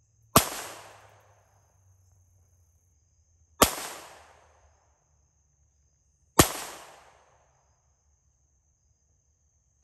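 Three handgun shots about three seconds apart, each sharp crack followed by an echo that fades over about a second.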